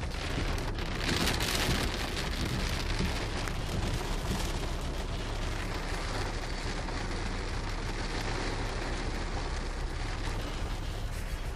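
Heavy rain pelting a car's roof and windshield, heard from inside the cabin. It is a dense, steady patter, a little heavier about a second in, with a steady low hum underneath.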